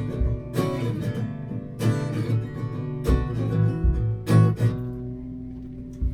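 Acoustic guitar strummed, one chord about every second and a quarter. The last chord is left ringing out and fades near the end.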